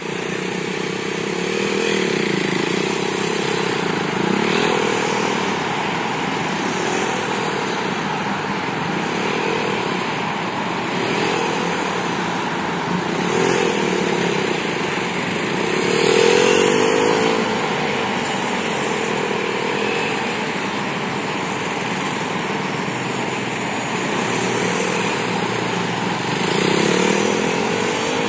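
KTM 390 Duke's single-cylinder engine revving up and easing off again and again, about every two seconds, as the motorcycle is ridden hard around tight turns.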